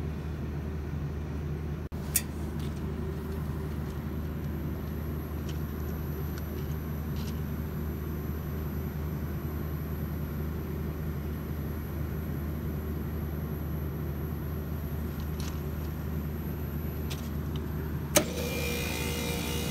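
Steady low machinery hum from a Daikin VRV III outdoor unit running its self-test, with a faint click about two seconds in. Near the end a sharp click as the new compressor contactor pulls in and the standard compressor starts, adding a louder, steady hum that sounds rough, like a bad bearing.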